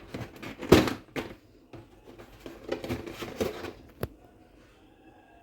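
A few knocks and clatters of objects being handled, the loudest under a second in, a cluster of rattling around three seconds in, and a sharp click about four seconds in.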